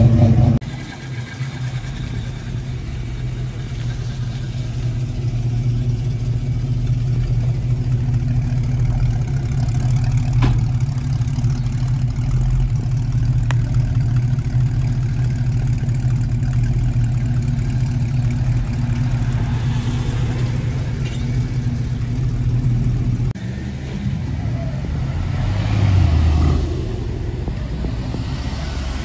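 Steady low drone of a car driving, with engine and road noise; it dips briefly about three-quarters of the way through, then swells again.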